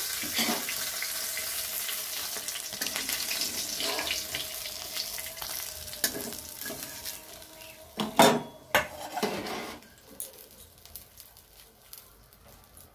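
Hot oil sizzling and crackling in a metal wok as the last fried katla fish pieces are scooped out with a spatula, scraping on the pan. The sizzle gradually dies down, broken by two sharp clanks of utensils about eight seconds in.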